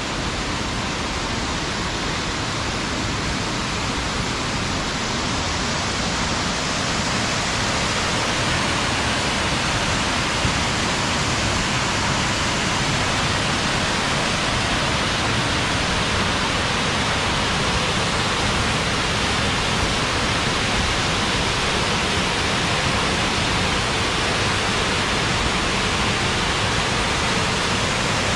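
Laurel Fork Falls pouring into its plunge pool: a steady rush of falling water that grows a little louder over the first several seconds.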